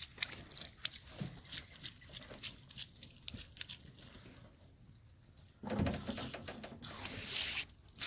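A freshly sawn yew slab being handled and lifted off the log: scattered light knocks and scrapes of wood, then a couple of seconds of louder rough scraping about six seconds in.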